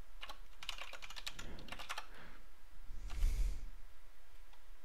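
Keystrokes typed on a computer keyboard in short quick runs as a shell command is entered, with a brief, louder rush of noise about three seconds in.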